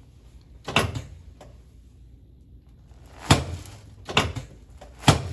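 Sharp thumps from a chiropractic adjustment of the neck and upper back on the treatment table, made to correct forward head posture. There is one about a second in, then three more about a second apart from about three seconds in.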